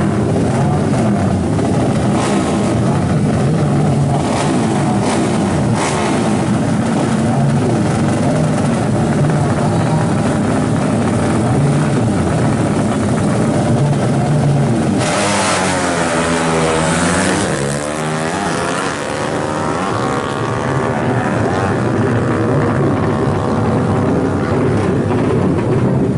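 Drag-racing motorcycle engines running loud and rough. About fifteen seconds in a louder engine note cuts in, its pitch sweeping down and then climbing again.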